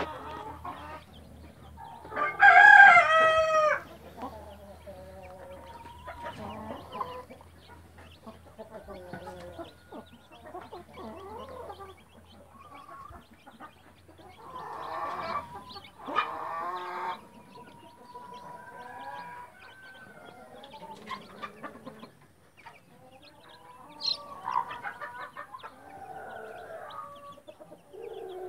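A rooster crows once, loudly, about two seconds in. A mother hen clucks and her chicks peep in short, scattered calls throughout.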